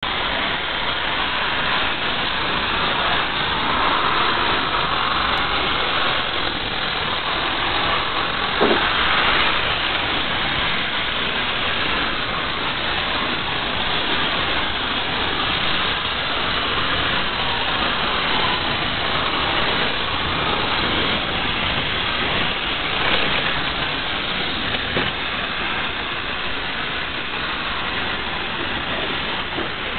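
Battery-powered Brio wooden toy trains, including the rechargeable 8WD engine, running along wooden track: small electric motors and wheels rolling, a steady sound with an occasional knock.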